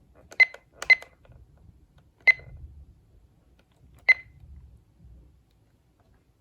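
Weather radio giving short high beeps as its buttons are pressed: four beeps at uneven intervals, two close together near the start, one a little over two seconds in and one about four seconds in.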